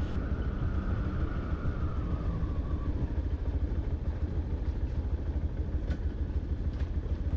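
Yamaha FZ-X motorcycle running on the move, with a steady low rumble of engine and wind on the rider's microphone. A faint whine slowly drops in pitch over the first few seconds.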